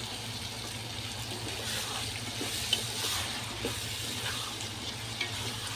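Blended fresh tomatoes going into a hot pot of oil, spices and tomato paste, sizzling and being stirred. The sizzle swells in the middle, with a couple of light clinks.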